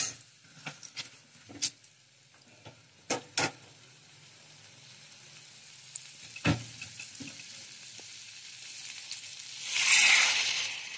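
A metal spatula clicks and knocks against a metal kadai over broccoli and potatoes sizzling faintly in spiced oil. Near the end, hot water is poured into the hot pan with a loud burst of sizzling and splashing.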